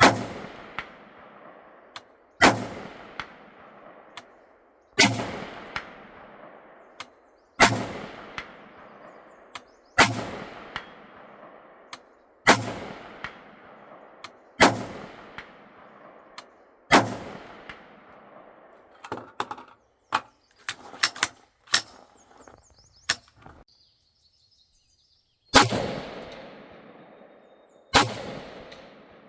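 Gunshots at a range, about ten loud rifle shots spaced roughly two and a half seconds apart, each with a long echoing tail. Fainter sharp cracks fall between them and bunch up in a quick run past the middle. After a brief lull, two more loud shots follow.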